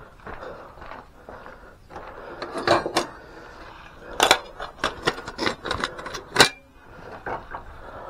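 Metal clinking and clanking as a gloved hand shifts a wire rack and loose metal pieces on a wooden shelf. A few sharp clanks come near three seconds in, then a quicker run of them for about two seconds, the loudest near the end of that run.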